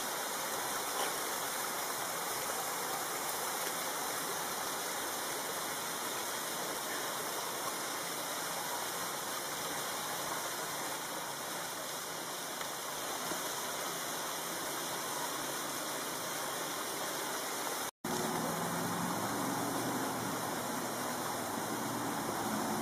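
Steady rushing of running water, an even hiss with no distinct events. It cuts out for an instant near the end, and then a faint low hum joins it.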